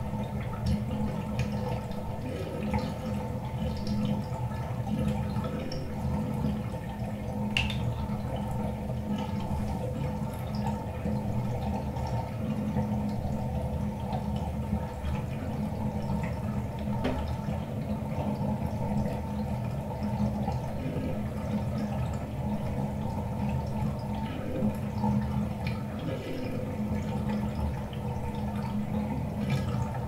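Fiberglass bathtub draining: a steady low rush of water running down the drain, partly picked up through the tub's shell by a contact mic, with a couple of brief clicks.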